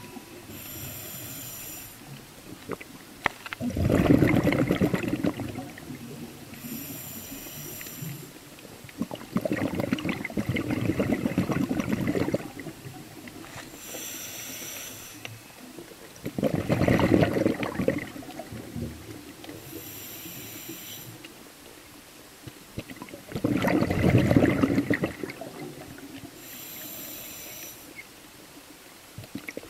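Scuba diver breathing through a regulator underwater: a short high hiss on each inhale, then about two seconds of exhaust bubbles on each exhale. The exhales come four times, about every seven seconds.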